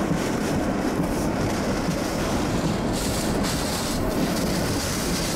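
Hurricane-force wind blowing steadily with driving rain, buffeting the microphone; the hiss grows brighter about three seconds in.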